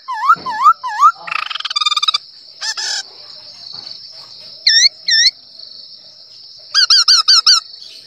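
A man imitating bird calls with his mouth: short calls that swoop down and up, a brief buzzy trill, and near the end a quick run of about six sharp notes.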